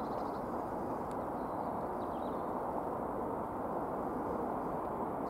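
Steady outdoor background noise, even and unchanging, with a few faint bird chirps.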